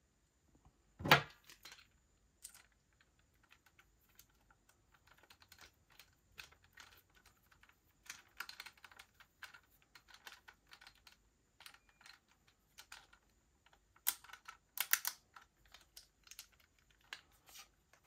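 Small screwdriver driving the mounting screws into a 2.5-inch SSD's metal hard-drive caddy: an irregular run of small clicks and light scrapes. There is one louder knock about a second in and a cluster of sharper clicks near the end.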